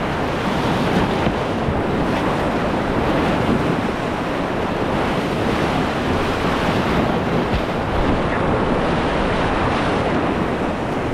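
Whitewater rushing and churning steadily in a surfing hole, heard close up from a kayak sitting in it.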